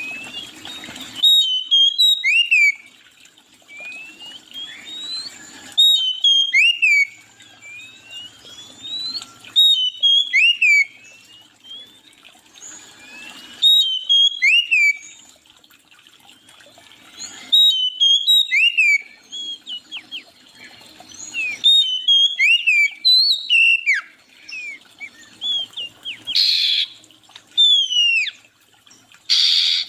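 A songbird singing a repeated phrase of quick downslurred whistles about every four seconds, with softer rising notes between the phrases. Two brief rushing noises come near the end.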